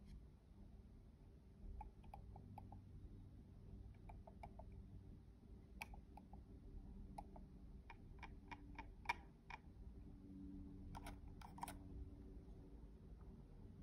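Faint, light clicks in short runs from a Logitech MX Master 3S mouse being handled, its buttons and scroll wheel pressed and turned; the sharpest click comes about nine seconds in.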